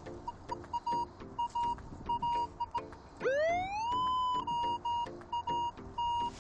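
Minelab Manticore metal detector sounding target responses: a fast patter of short beeps at one pitch mixed with low, rough tones. About three seconds in, one tone rises in pitch and holds for about a second before the short beeps return.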